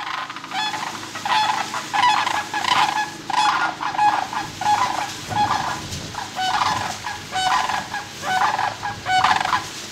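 Sandhill cranes calling loudly and repeatedly, a rolling, rattling call every half second to a second, several birds overlapping: warning cries at a person who has come too close.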